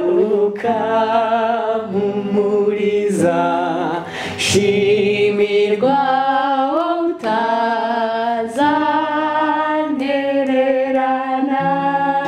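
A man and a woman singing a gospel song together in harmony, holding long notes with vibrato, to an acoustic guitar.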